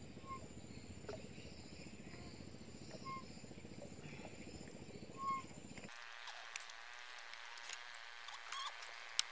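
A bird gives a short, repeated chirp every two to three seconds over a low outdoor rumble. About six seconds in, the sound changes abruptly to a thin hiss with scattered sharp clicks.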